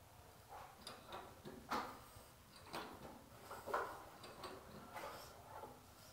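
Metal spanner clicking and clinking against a chrome threaded fitting as the fitting is tightened into a wall outlet: a handful of sharp, irregular clicks, roughly one a second.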